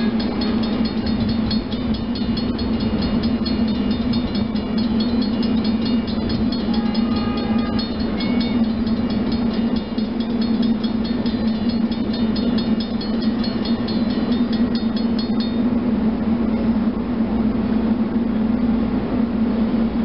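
Railroad grade-crossing bell ringing in fast, even strokes, stopping about fifteen seconds in, over a steady low hum.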